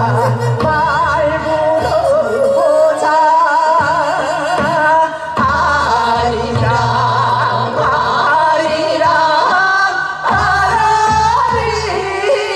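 Group of women singing a Korean folk song (minyo) together through microphones, with a strong wavering vibrato, over an amplified accompaniment with a steady low beat that drops out briefly a few times.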